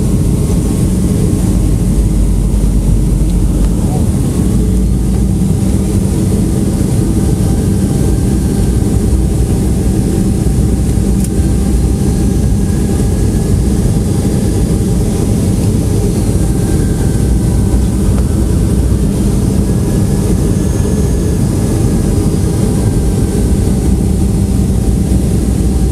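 Airliner cabin noise during descent: the jet engines and airflow make a steady, loud rumble, heaviest in the low end, with a faint steady whine above it.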